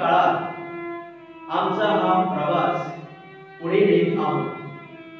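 A man's voice chanting a prayer in three short phrases, over a violin holding long, steady notes underneath.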